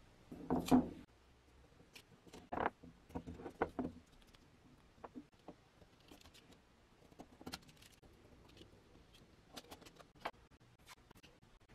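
Masking tape being trimmed with a snap-off craft knife and pressed onto a painted metal balance frame: soft scraping, rustling and handling noises. The louder scrapes fall in the first four seconds, followed by scattered light clicks.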